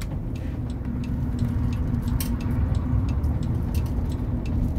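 Car turn-signal indicator ticking steadily, about three clicks a second, for a left turn, over the low hum of the engine and road noise inside the cabin.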